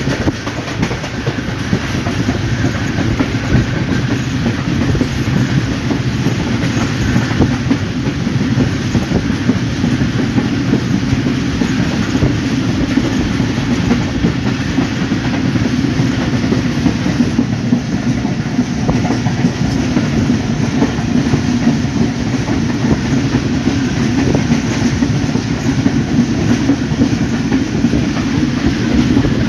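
Sukkur Express passenger train running at speed, heard from a coach window: a steady, loud running noise of the wheels on the rails, strongest in the low range.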